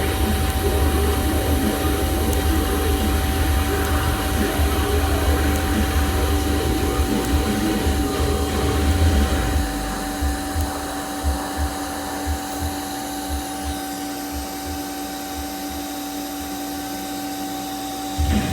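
TIG welding arc from a Miller Dynasty 210 DX at about 200 amps on steel tubing: a steady hiss and buzz with a constant whine. It drops in level about halfway through, and low pulses then come about twice a second as the current is pulsed by hand with the foot pedal.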